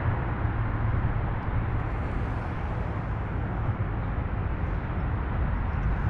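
Steady low rumble with a hiss: outdoor background noise with no distinct event.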